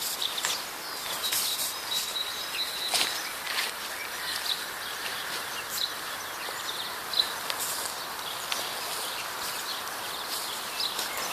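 Outdoor ambience: a steady hiss with many short, high bird chirps and twitters scattered throughout, and one held high whistled note about a second in.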